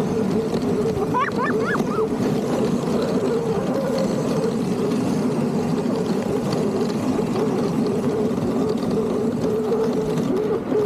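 Dog sled gliding over packed snow: a steady scraping rush from the runners, with a few short, wavering high squeaks about a second in.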